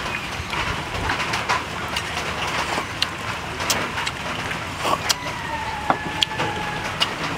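Small sharp clicks and taps of snail shells against the mortar and against each other as cooked snails are dipped in chili sauce and eaten, over a steady outdoor hiss. A bird calls with a long, slightly falling whistle about five seconds in.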